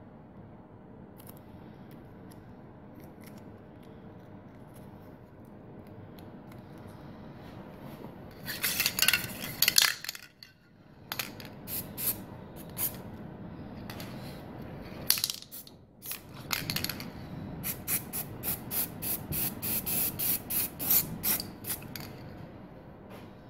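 Aerosol spray can sprayed in bursts. There is one long burst about a third of the way in, a few short ones after it, then a quick run of short bursts, about three a second, near the end.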